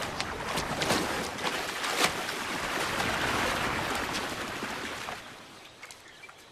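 Water splashing and sloshing as Asian elephants bathe and swim in a river, with many sharp splashes, dying down after about five seconds.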